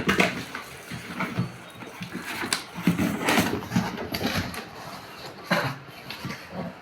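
Handling noise from unboxing a loudspeaker: packaging rustling and scraping as the box seal is cut and the speaker is taken out, with a few sharper scrapes.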